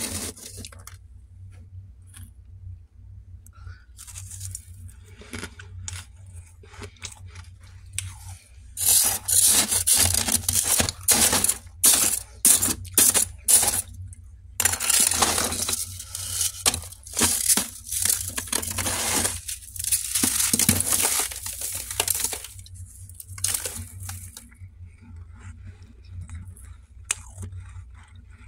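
A hand scraping and scooping packed freezer frost in a pan: crisp crunching and scraping strokes, scattered at first, then a long dense run through the middle, thinning out near the end. A low steady hum runs underneath.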